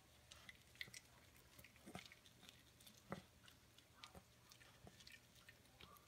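Pomeranian gnawing kernels off a cooked corn on the cob, working side to side along it: faint, irregular crunchy nibbling clicks, several a second.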